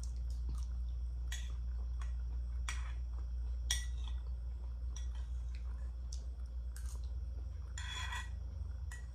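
Spoon scraping and tapping against a small plate as food is scooped up: a handful of short scrapes and clicks, the longest scrape near the end. A steady low hum runs underneath.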